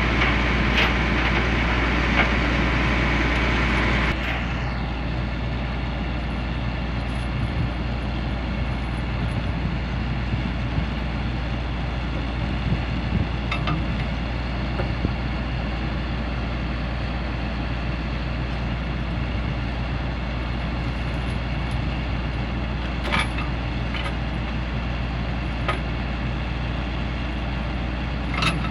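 Heavy diesel engine idling steadily, with a few sharp clicks spaced well apart. The hum drops in level and changes in tone abruptly about four seconds in.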